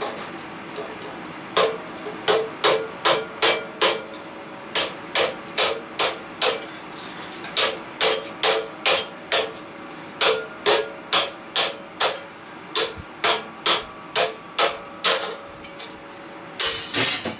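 Hammer blows on a tool driven into an air-conditioner A-frame coil, stripping the aluminum fins off the copper tubes: sharp metallic strikes, about two to three a second in several runs, each with a short ring. A short scraping rattle comes near the end.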